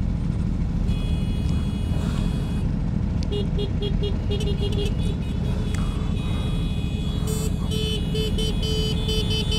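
Vehicle horns beeping in quick repeated toots, starting about three seconds in and growing busier near the end. Under them runs the steady low rumble of motorcycle engines and wind.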